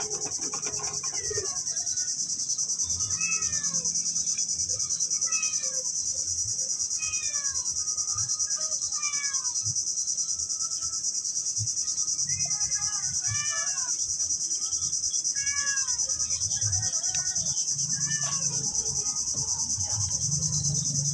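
A steady, high-pitched chorus of insects buzzing. A bird calls over it in short runs of falling notes every few seconds.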